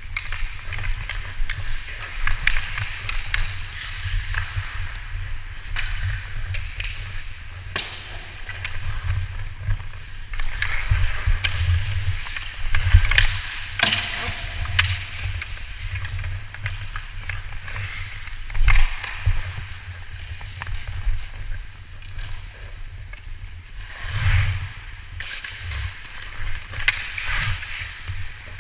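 Hockey skates scraping and carving on ice, with sharp clacks of sticks and puck, over a steady low rumble.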